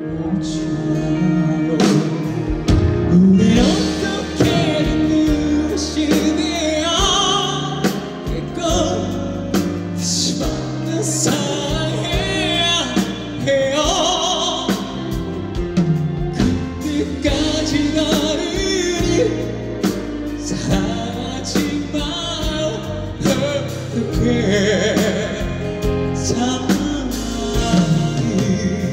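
A singer holding long, wavering notes over a live rock band's full accompaniment.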